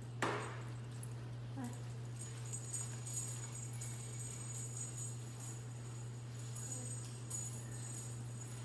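Light metallic jingling from a small dog's collar and leash clasp as it trots on the leash, coming in small irregular shakes. A steady low hum runs underneath, and a single knock sounds right at the start.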